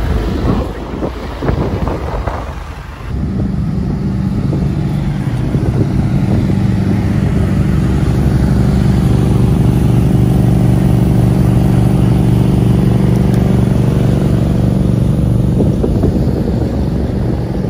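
A motor engine running steadily and loudly from about three seconds in, with wind buffeting the microphone before it starts.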